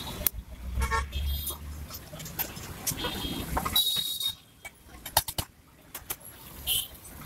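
Street traffic: short vehicle horn toots over a low engine rumble, with a few sharp clicks about five seconds in.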